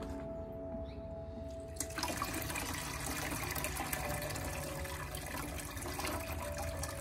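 Water poured from a plastic jug and splashing steadily over a strainer basket of gold-plated circuit-board fingers, rinsing off the leftover acid solution. The pour starts about two seconds in.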